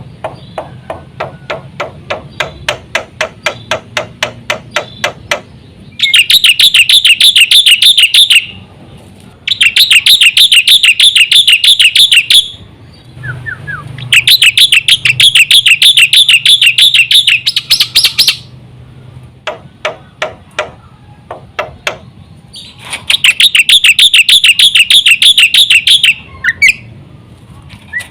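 Black-winged myna (jalak putih) singing: runs of rapid sharp clicking calls alternating with long, loud, fast rattling trilled phrases, four of them, each lasting a few seconds.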